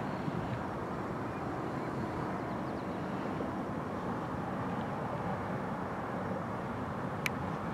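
Steady low outdoor rumble with no distinct source, and a single sharp click near the end.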